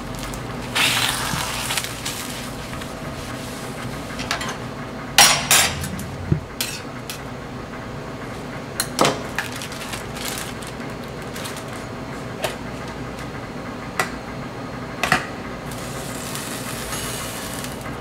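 Metal cooking utensils knocking and clinking against cookware and a griddle: scattered clanks and taps, with a cluster of louder knocks about five seconds in, over a steady background hum.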